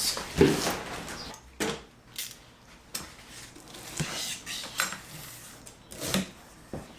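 Hands handling a shipping box and its contents: a run of scattered, irregular knocks, clinks and clicks with rustling between them.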